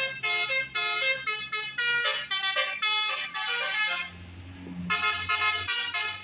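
Bus telolet horn, a multi-tone musical horn, sounding a quick run of short notes that step up and down in pitch. The notes break off for about a second, leaving a low rumble, then play another run that stops abruptly at the end.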